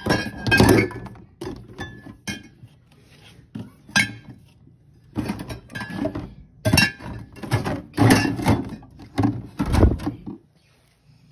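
Glass wine bottles and drink cans clinking and knocking against each other and the cooler's plastic walls as they are shifted by hand, in repeated bursts of clatter with short ringing glassy tones.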